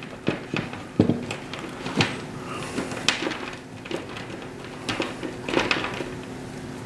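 Handling noise from insulated antenna wire being wrapped around the end of a Diamond W8010 dipole's 80 meter trap: scattered clicks and short rustles of wire against the trap body, the sharpest about one and two seconds in, over a faint steady hum.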